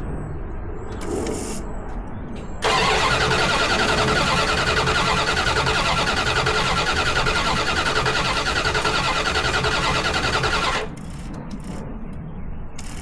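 1990 Dodge Ram 150 TBI pickup's engine being cranked by the starter for about eight seconds in an even rhythm, then stopping suddenly without the engine catching: a crank-but-no-start.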